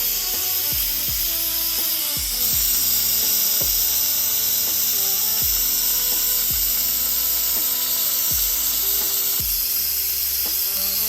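Background music with sustained notes and deep, downward-sliding bass drum hits.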